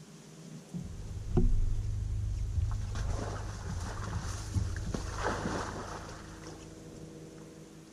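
A low rumble through a fibreglass bass boat's hull starts abruptly about a second in and fades near the end. Over it there is a sharp knock on the deck early on and a stretch of scuffing and tapping in the middle as a dog gets up and moves about on the deck.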